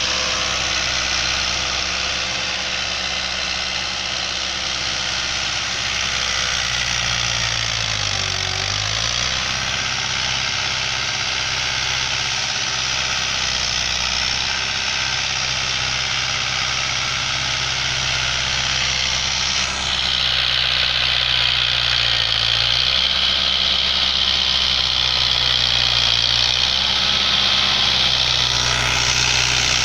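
Fiat 640 tractor's diesel engine running steadily under load as it pulls a cultivator through the soil. About eight seconds in, the engine note dips briefly and recovers. About two-thirds through, the sound turns abruptly louder and brighter.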